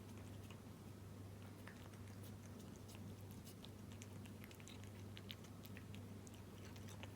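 Cat chewing wet food in jelly: faint, irregular small clicks and smacks of chewing over a steady low hum.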